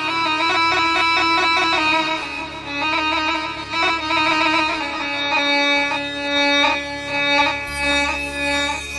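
Instrumental interlude of Arabic ataba and mawwal music, a melody of steady held and repeated notes with no singing.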